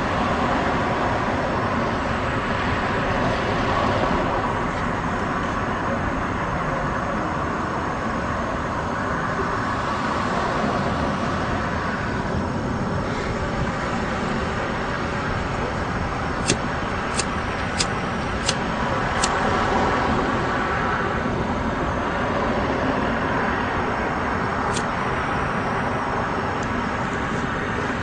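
Steady city traffic noise, a constant rumble and hiss. A little past halfway there is a run of five sharp clicks within about three seconds, and one more click a few seconds later.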